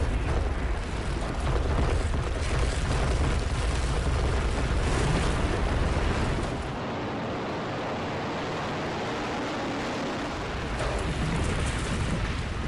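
A World Trade Center tower collapsing, heard from the street: a deep rumble under a loud rushing roar of falling debris. About six or seven seconds in, the low rumble drops away and a steady rushing noise goes on.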